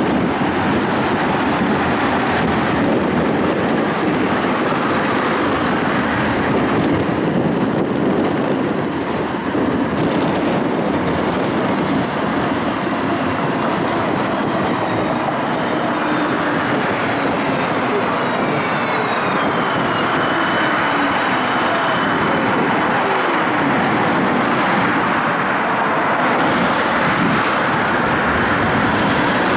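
Budapest tram 4, a Siemens Combino low-floor tram, running steadily, heard from inside: continuous rolling and running noise. Faint whines rise and fall in pitch around the middle.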